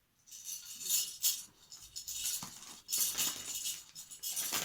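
Rustling and light clinking from shopping items and their packaging being handled, in irregular bursts that grow busier in the second half.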